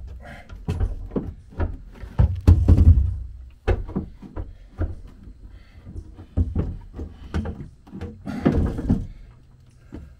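Irregular knocks and thuds of a painted engine-well plug being pushed and worked into place in a small sailboat's outboard engine well, around the outboard's lower unit, with two heavier clusters of knocks.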